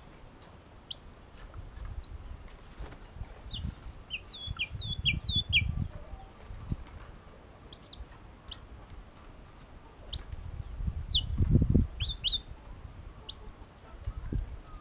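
Yellow-cheeked tit (chi chi mào) in a cage giving short, sharp, high chirps, each note sweeping down, with a quick run of them about four to six seconds in. Low fluttering thumps come as it flaps and hops about the cage, loudest a little after ten seconds.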